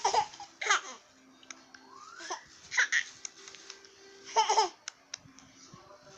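Baby laughing in about four short bursts of giggles, with the crinkle of a thin plastic bag being waved over her between the laughs.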